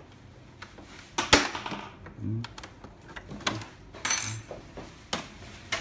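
Hard plastic clicks and clatter as the top cover of a Melitta Passione coffee machine is pried off its clips and lifted away, with a sharp snap a little over a second in and a rattling cluster of clicks about four seconds in.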